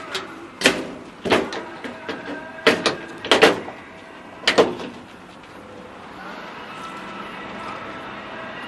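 A handful of sharp claps or knocks in the first five seconds, then a steady background hum.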